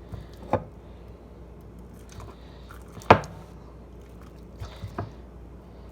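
Clear-glue slime being kneaded and pulled by hand, giving a few wet squelches and smacks, the loudest just after three seconds and a quick run of three near the end.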